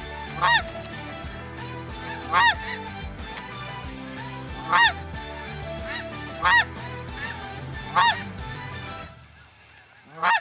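Snow geese calling as they fly over: single high honks about every two seconds, with fainter calls between. Background music with sustained low chords runs underneath and fades out about nine seconds in.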